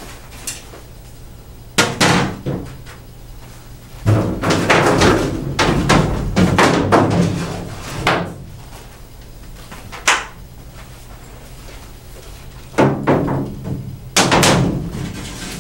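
Fiberglass shelf panels of a laundry cart being folded down and swung back up, knocking and clattering against the cart body. There are sharp knocks about two seconds in, a long run of clattering from about four to eight seconds, a single knock about ten seconds in, and more clatter near the end.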